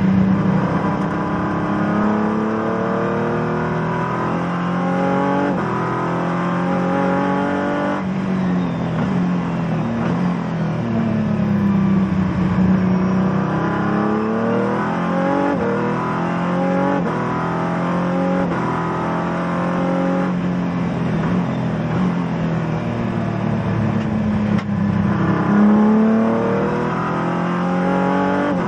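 Race car engine heard from inside the cockpit at speed: the revs climb through the gears and drop sharply at each upshift, then fall away and pick up again as the car slows for corners and accelerates out.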